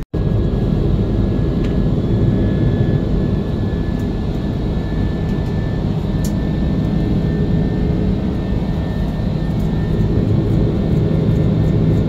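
Steady roar of an Airbus A330's jet engines and rushing air heard inside the cabin during the climb after takeoff, with a faint steady high whine above it.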